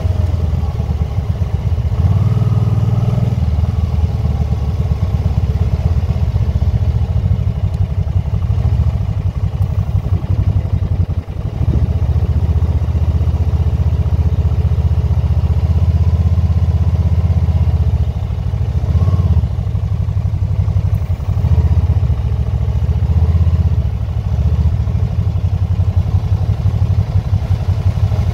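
Can-Am motorcycle running on the road, a loud, steady low rumble of engine and riding noise with no break, dipping briefly about eleven seconds in.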